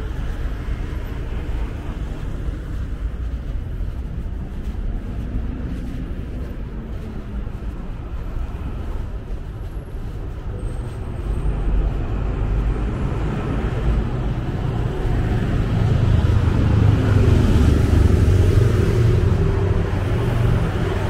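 Motor traffic on a city road, vehicles passing with a steady engine and tyre noise. Partway through, a passing vehicle's engine grows louder, loudest near the end.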